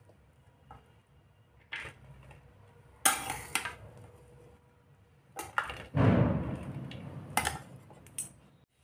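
Metal spatula knocking and scraping against a steel pan as flattened rice with peas is scooped out onto a plate. There are several separate sharp clinks, and a longer scrape about six seconds in.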